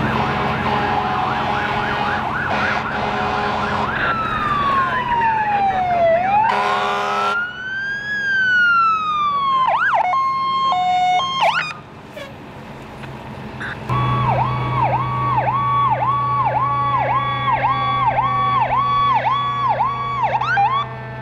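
Fire apparatus electronic sirens: a slow wail falling and rising, a short air-horn blast about seven seconds in, then from about halfway a fast yelp, about two sweeps a second, over a diesel engine's steady drone as a fire truck approaches.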